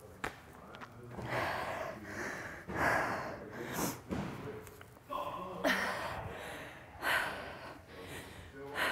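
A woman breathing heavily, catching her breath after a high-intensity interval circuit: loud noisy breaths in and out, about one a second.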